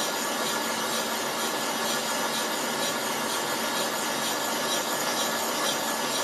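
Milling machine spindle running in low gear while an auto-feed boring head cuts the cylinder-barrel shoulder in an air-cooled Volkswagen aluminium cylinder head. A steady scraping hiss of the cutter over a steady machine hum, as the boring bar feeds outwards toward its set diameter stop.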